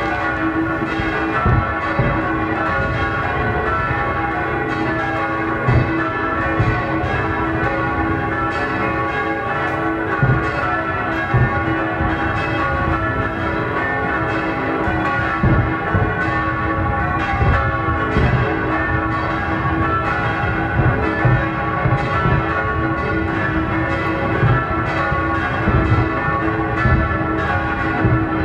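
Several church bells pealing together, with fireworks bangs and crackles going off again and again over the ringing.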